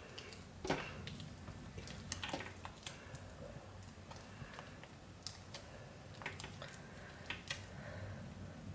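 A spatula is stirring thick liquid-soap paste by hand in a crock pot, making faint, irregular squishing and small clicks. The paste has traced and partly separated and is too thick for the stick blender.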